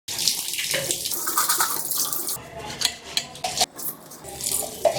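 Water running from a tap and splashing into a kitchen sink, steady for about two seconds, then coming in shorter, uneven splashes.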